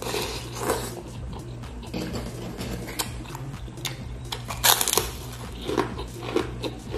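Noodles slurped at the start, then crisp bites into a kerupuk cracker, the loudest crunch a little before five seconds in, with chewing between.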